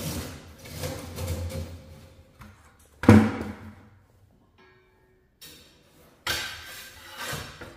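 Handling noises at a wood-burning fireplace: a sharp knock about three seconds in, then scraping near the end.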